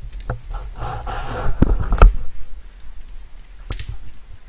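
Rustling and knocking right at the microphone over light rain, with a loud rustle in the middle and two sharp knocks about a second and a half and two seconds in, the second the loudest.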